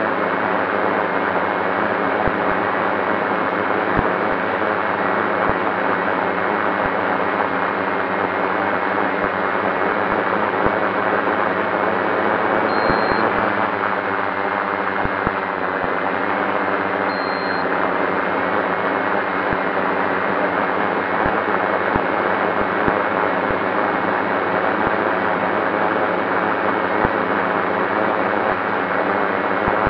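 FPV drone's electric motors and propellers running steadily, a loud buzzing hiss whose pitch shifts briefly about halfway through.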